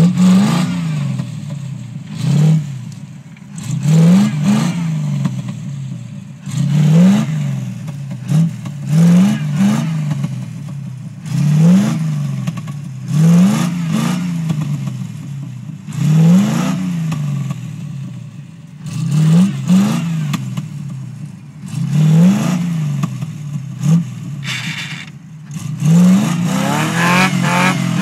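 Land Rover V8 engine revved hard again and again, a rising-and-falling surge about every two seconds, as the bogged-down truck tries to drive itself out of deep mud.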